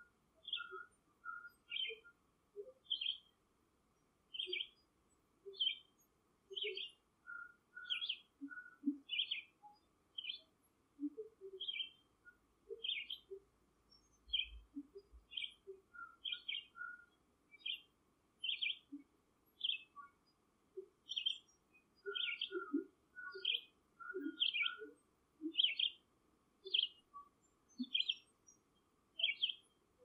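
A bird calling with short, high chirps, roughly one a second, with softer short low notes scattered between them.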